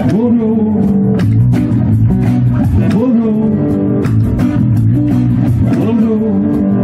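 Acoustic band music: two acoustic guitars strumming over an acoustic bass guitar, with a melody of sliding notes on top.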